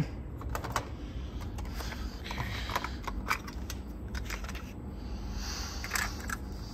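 Irregular light clicks and taps over a faint steady low hum.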